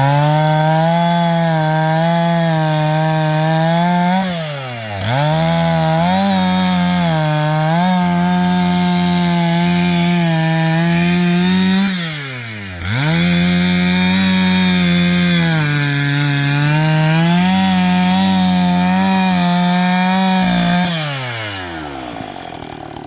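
Chainsaw running at full throttle and cutting wood, its engine pitch sagging now and then as the chain bites. Twice it briefly drops back toward idle and revs straight up again, and near the end it winds down.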